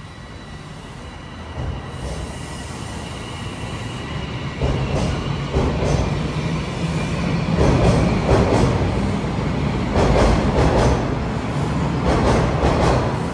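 A TTC Line 1 subway train pulling out of the station and gathering speed: a steady high motor whine at first, then rumbling wheels with irregular clattering that grows louder from about a third of the way in.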